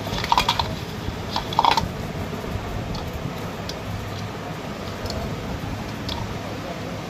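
Wire ends and fittings at the neck of an electric fan's motor being handled by hand: a few clattering clicks in the first two seconds, then faint scattered ticks over a steady low hum.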